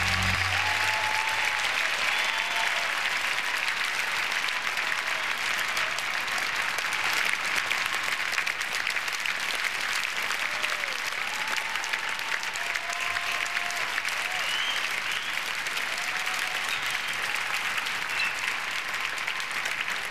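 Large arena crowd applauding steadily, with a few voices calling out over the clapping.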